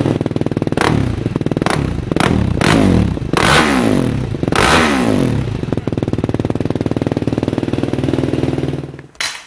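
2010 Yamaha YFZ450R's single-cylinder four-stroke engine, heard at the exhaust muffler, revved several times and then idling, shut off suddenly near the end. It is being run briefly to warm the oil before an oil change.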